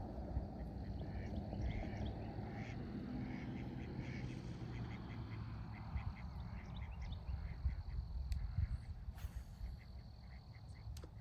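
A series of short, quick animal calls, quacking in character, coming several a second in the second half, over a steady low rumble.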